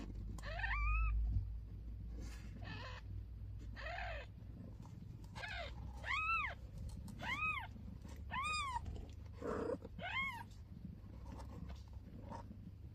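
Newborn kitten mewing repeatedly, short high cries that rise and fall in pitch, about one a second. There is a low bump near the start.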